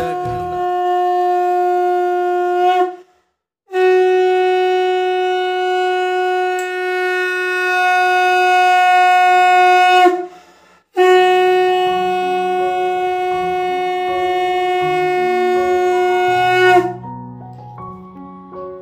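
Conch shell (shankha) blown in three long, steady blasts at one unwavering pitch, with short silent breaks between them. Near the end the blowing stops and soft keyboard music begins.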